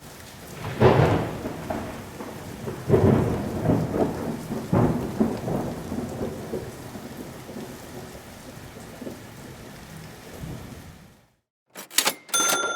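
Thunder rumbling over steady rain: several loud rolls in the first five seconds, then fading out about eleven seconds in. Near the end come a few sharp clicks and a ringing chime-like tone.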